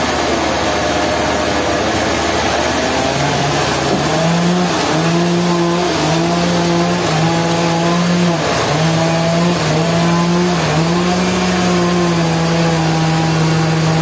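Band sawmill running with a steady engine hum over constant machine noise. The hum's pitch shifts and dips briefly several times, as the machine works under load.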